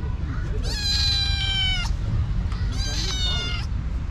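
Kitten meowing: two long, high meows of about a second each, the second starting about a second after the first ends, over a steady low rumble.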